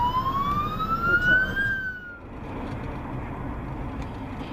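Ambulance siren wailing, its pitch sweeping slowly upward, then cut off abruptly about two seconds in and replaced by steady road noise of a car driving.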